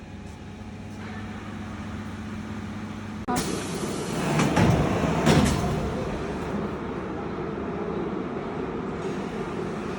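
Pleated filter cartridge end cap and length connector welding machine running with a steady hum, then about three seconds in a sudden louder, noisy machine sound starts, strongest a second or two later, and settles into a steady run.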